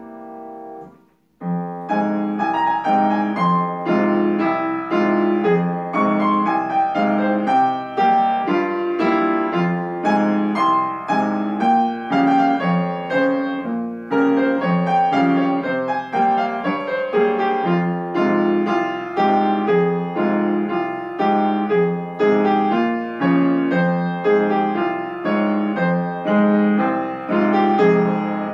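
Yamaha piano played solo: a slow Korean trot melody over a steady, even bass accompaniment. A held chord dies away and there is a brief pause about a second in before the playing resumes.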